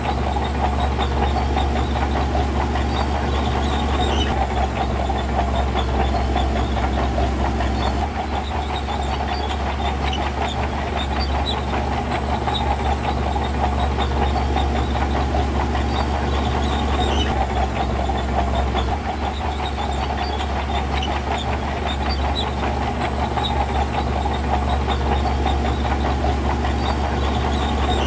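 Heavy diesel earthmoving machinery running steadily under load, with a low engine drone and a constant rattle of small metallic clanks.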